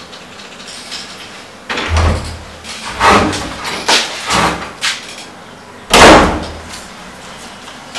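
A door being opened and shut: several knocks and thumps, then a loud slam about six seconds in.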